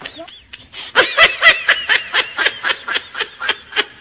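Laughter: a long run of quick, even ha-ha pulses, about five a second, starting about a second in.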